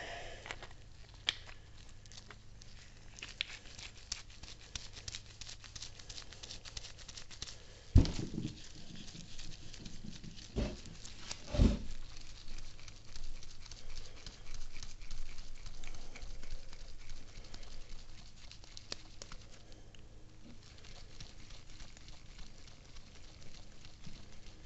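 Light clicking and scraping of metal outdrive tilt-assembly parts being handled and a threaded part screwed down by hand, with three louder knocks about eight, ten and a half and twelve seconds in.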